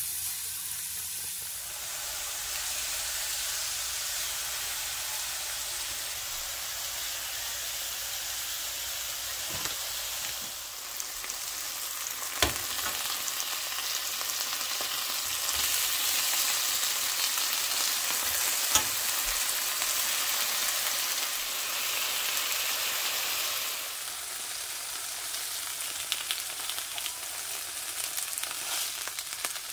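Chicken pieces sizzling in hot oil in a nonstick frying pan over above-medium heat: a steady frying hiss, with two sharp clicks along the way.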